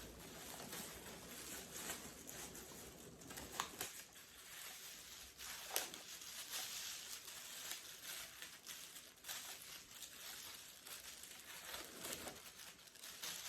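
Plastic packaging bag crinkling and rustling while a model train car is unwrapped by hand, faint and irregular, with a few light clicks.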